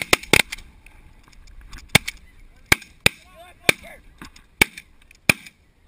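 Snow geese calling: a scattered run of sharp, short, high-pitched honks, bunched at the start, with a few softer, lower honks a little past the middle.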